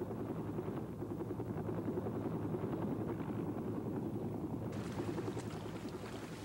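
Steady low rumble of an aircraft in flight, heard from on board, with a fast flutter running through it. It slowly fades from about five seconds in as faint outdoor sounds with light ticks come in.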